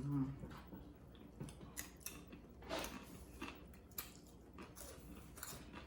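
Faint chewing of food, with scattered short, irregular clicks.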